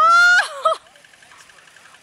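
A high-pitched cry from a child's voice, about half a second long and rising slightly in pitch, followed at once by a short yelp.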